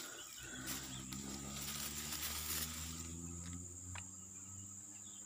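Steady high-pitched buzz of insects, crickets or similar, in wet field vegetation, over a low hum that fades out after about four seconds, with a couple of faint clicks.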